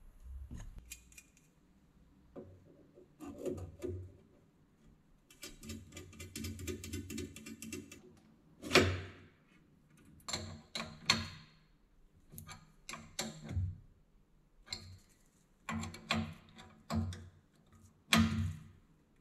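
Metal tools and parts handled at a workbench: scattered clanks and knocks, with a few seconds of fast, even clicking about a third of the way through and one sharper knock just after.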